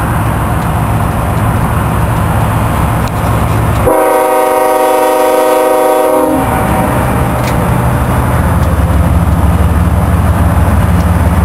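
BNSF locomotive air horn sounding one long chord blast, starting about four seconds in and lasting about two and a half seconds. Under it is a steady low rumble that grows louder near the end as the train approaches.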